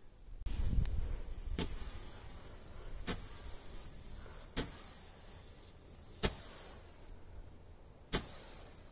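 Small consumer roman candle firing, a sharp pop about every one and a half seconds, five in all, over a faint hiss from the burning tube.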